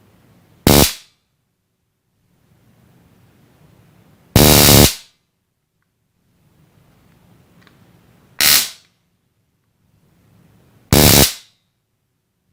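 Handheld 5000-volt electric stun gun discharging in four short, loud crackling bursts, each under a second long and a few seconds apart; the second and fourth last a little longer.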